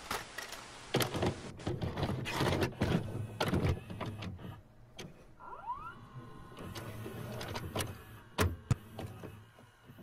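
Videocassette recorder mechanism loading and playing a tape: a run of clunks and clicks over a low hum, with a short rising whine about five and a half seconds in.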